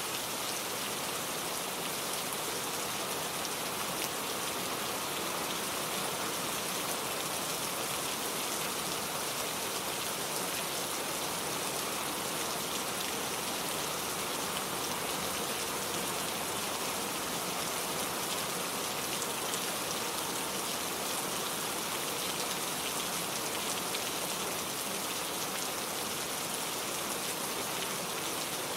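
Heavy rain falling steadily: a dense, even hiss with faint individual drops ticking through it.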